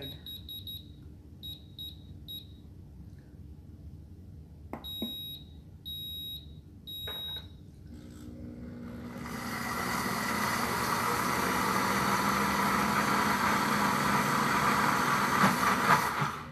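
Pampered Chef Deluxe Cooking Blender: a quick run of short high beeps as its dial is turned to sauce mode, then three longer beeps about a second apart. A few seconds later the motor starts and blends the butter-and-lemon-juice mixture steadily, cutting off suddenly near the end.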